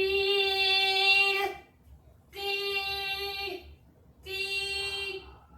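A child's voice imitating an electronic alarm tone: three long, steady "beeep" notes at one pitch, each about a second or more long and dipping at the very end, repeating about every two seconds.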